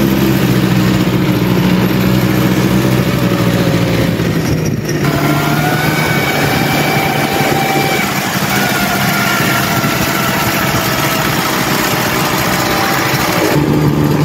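Quad bike engine running while it is ridden over sand, over a steady rushing noise. About five seconds in, the low steady engine note gives way to a higher whine that slowly sags in pitch.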